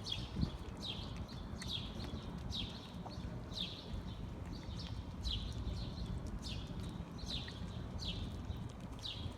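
A small bird chirping over and over: short, high, falling chirps about once a second, sometimes two or three close together, over a steady low rumble of outdoor noise.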